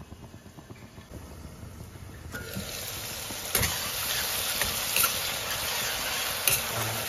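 Masala with eel frying in a stainless-steel pan, a soft sizzle that grows louder about halfway through as a metal spoon stirs and scrapes, with a few sharp knocks of the spoon against the steel.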